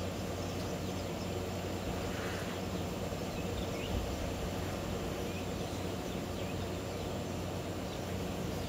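Steady outdoor background noise with a low hum, and a few faint, brief bird calls now and then.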